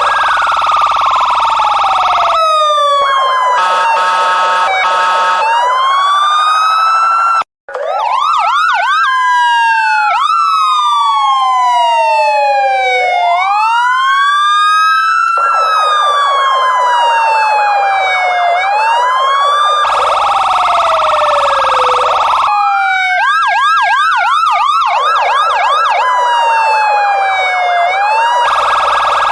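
Electronic police car siren switching between modes: a slow wail rising and falling in pitch, a fast yelp and a rapid warble. It cuts out for a split second about seven and a half seconds in.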